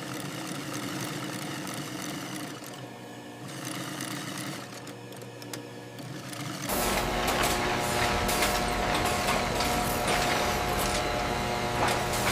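Machinery running, with a louder sound bringing a low rumble and a steady hum starting suddenly about seven seconds in.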